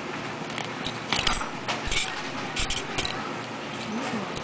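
Small steel coil springs and clutch parts clinking as they are picked over by hand, a scatter of light metallic clicks through the middle.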